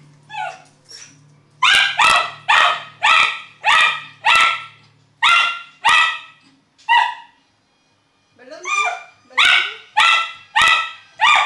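Miniature schnauzer barking repeatedly in sharp, high barks, about two a second, breaking off briefly past the middle and then starting up again with a rising yelp.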